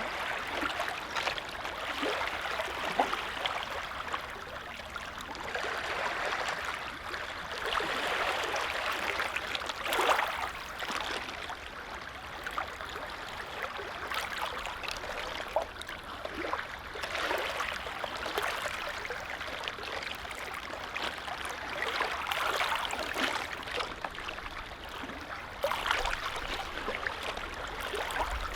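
Small lake waves lapping at the shore: a soft wash of water that swells and eases every few seconds, with little splashes through it.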